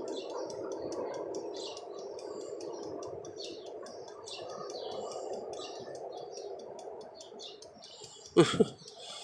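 A steady hum with quick, repeated high chirps over it, and a sudden loud knock near the end.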